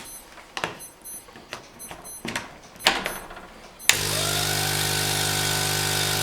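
A few handling knocks and clicks, then about four seconds in a small aquarium-type air pump switches on with a click and runs with a steady hum, supplying air assist to a laser cutter's flow meter.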